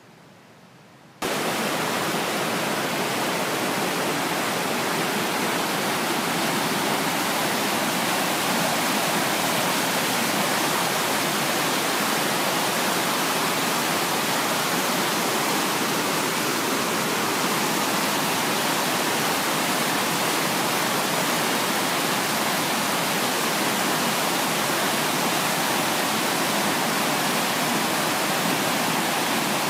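Fast mountain stream rushing over boulders: a steady, even rush of white water that cuts in suddenly about a second in.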